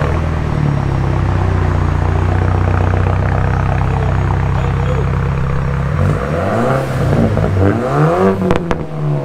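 BMW 328i's 2.0-litre turbocharged four-cylinder with its muffler and resonator deleted: it fires up suddenly and holds a steady idle, then about six seconds in is revved in a series of quick rising and falling blips.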